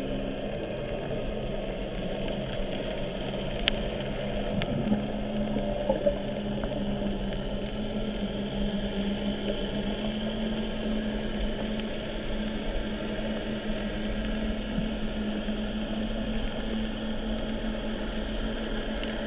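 Muffled underwater ambience picked up through a camera housing: a steady hiss with a low steady hum underneath, and a few sharp clicks about four seconds in.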